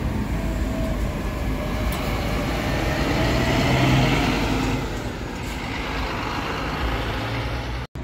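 A Marcopolo New G7 intercity coach pulling out and driving past, its diesel engine running steadily. It grows loudest about four seconds in, then fades. The sound cuts out for an instant near the end.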